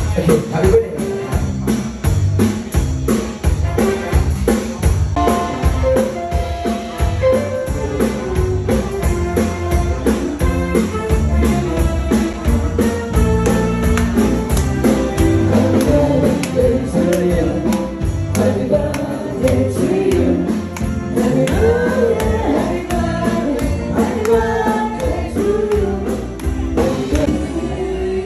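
Band music with a singer, a drum kit and a steady beat marked by a high jingling tick.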